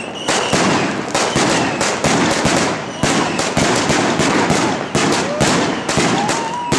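Allevi 61-shot F4 fireworks battery cake firing 25–30 mm shots in quick, irregular succession: launch thumps and sharp salute bangs and pops overlapping several times a second.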